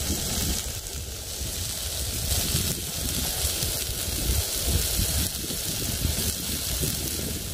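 Hanwoo beef slices sizzling steadily on a hot granite stone grill plate, a fine frying hiss over a low rumble.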